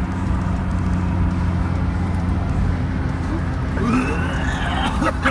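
A car driving at a steady speed, heard from inside the cabin: a low engine and road hum that holds the same pitch throughout.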